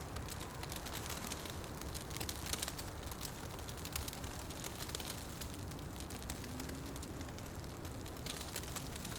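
Wood fire burning in a fireplace: a steady low rumble with irregular crackles and sharp pops scattered all through.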